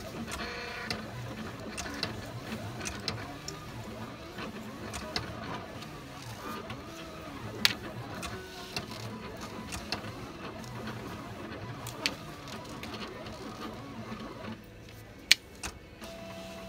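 Heat-transfer vinyl being weeded with a wooden-handled weeding hook: small scratches, peels and sharp taps of the tool and sheet on the table. Under them a steady background hum, which drops away near the end.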